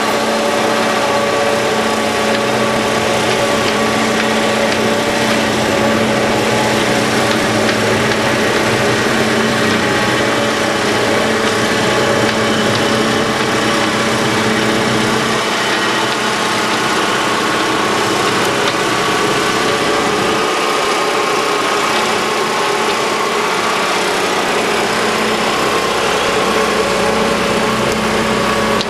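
Engine of a KMI Sea-Lift hydraulic boat trailer running steadily with a constant hum while it hauls a sailboat up the ramp.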